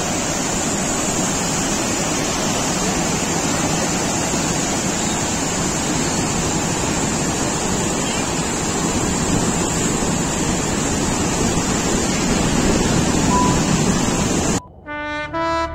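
Rushing floodwater churning over a weir below a dam spillway, a loud steady rush of white water. Near the end it cuts off and brass music begins.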